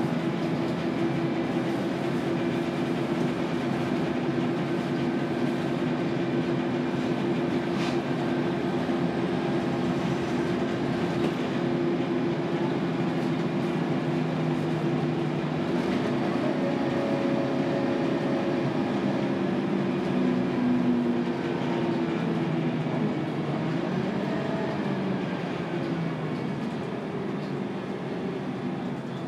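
Scania K280UB bus heard from inside while under way: its rear-mounted 9-litre five-cylinder turbo diesel (Scania DC9) and ZF Ecomat six-speed automatic give a steady drone with a humming whine. After about twenty seconds the engine note shifts, and toward the end the sound falls away a little.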